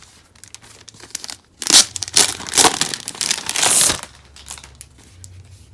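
Packaging crinkling and tearing as a desk calendar is unwrapped by hand, loudest for about two seconds in the middle.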